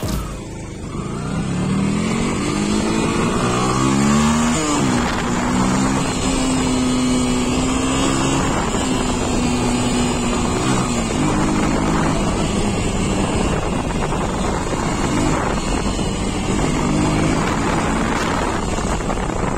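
Yamaha Fazer motorcycle's single-cylinder engine under way, its pitch rising as it accelerates for the first few seconds. It drops at a gear change about four and a half seconds in, then runs fairly steadily at cruising speed with a few small rises and dips.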